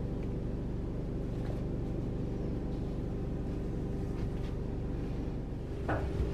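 Steady low mechanical hum of a running motor, with a constant drone of several low tones.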